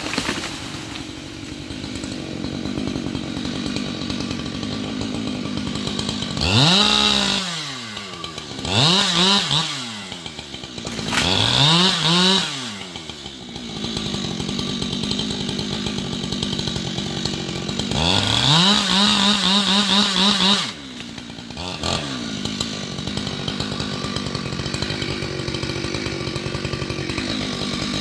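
Two-stroke chainsaw idling, revved up sharply and let back down several times: three short blips, then one held at full throttle for about two and a half seconds and cut off suddenly, with a last quick blip after.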